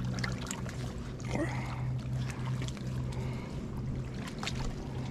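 Small channel catfish splashing in shallow water at the shoreline as it is reeled in and lifted, with water lapping. A steady low hum runs underneath.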